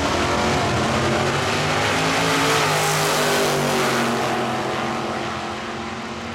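Two drag-racing cars with Chevrolet 409 big-block V8s launching at full throttle and accelerating down the strip, engine pitch climbing. They are loudest as they pass about three seconds in, then fade into the distance.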